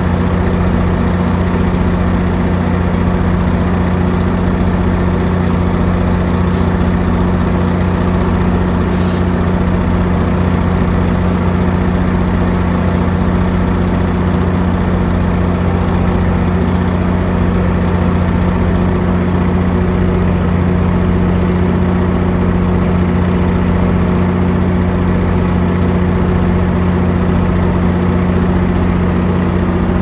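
GO Transit MP40PH-3C diesel locomotive idling: a loud, steady low engine hum with a deeper throb underneath. Two short clicks come about six and nine seconds in.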